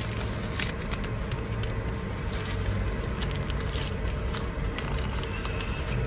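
A paper slip and a small plastic zip bag rustling and crinkling in the hands, with scattered light crackles over a steady low hum.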